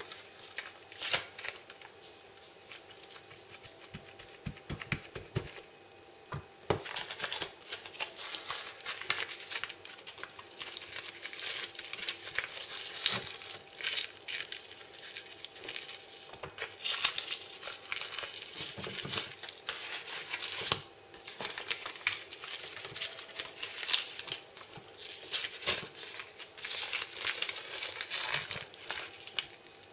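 A dry nori sheet crinkling and crackling, with a bamboo sushi mat rustling and clicking, as a rice-filled nori packet is folded and pressed by hand. It comes in irregular spells of a second or two, sparse at first and busier from about a quarter of the way in.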